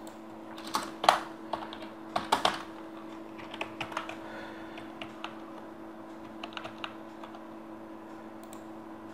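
Typing on a computer keyboard: a run of sharp keystrokes, loudest and busiest in the first few seconds, then sparser, over a steady low hum.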